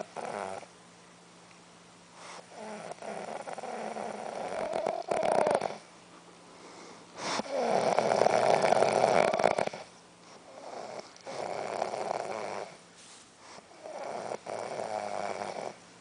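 A sleeping woman snoring: a series of snores, each two to three seconds long with quiet gaps between, the loudest about eight seconds in.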